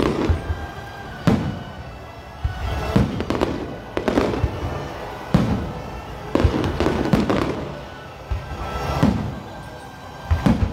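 Electrically fired aerial firework shells bursting in a series of about ten loud booms, some in quick pairs, each trailing off. Background music plays underneath.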